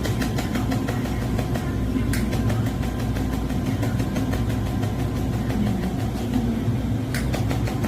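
Pulsed laser welder for mold repair running with a steady low hum. Short runs of rapid clicks, several a second, come as the laser fires pulses: once at the start, again about two seconds in, and near the end.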